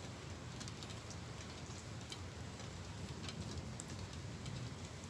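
Light rain falling: scattered faint ticks of drops over a steady low background rumble, with no thunderclap.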